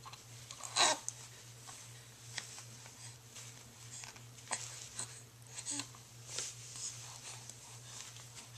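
A young baby's quiet, snuffly breathing, with several short wheezy breaths and little snorts, the strongest about a second in, over a faint steady low hum.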